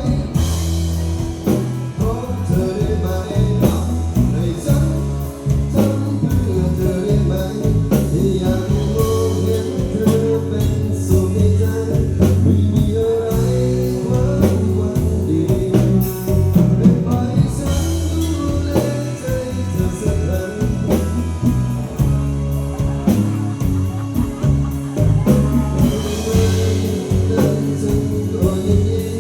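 Live band music with bass and percussion during a stage performance of a Thai pop song.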